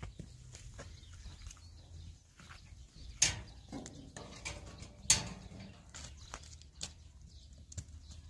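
Livestock moving about a farmyard pen: scattered knocks and clicks, with two sharp clatters about three and five seconds in.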